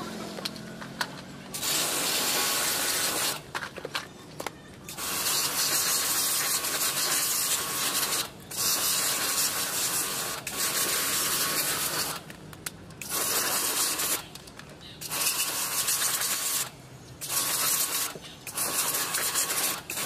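Electric pressure washer spraying a jet of water onto a plastic washing-machine lid, a loud hiss that starts and stops about eight times as the trigger is pulled and released.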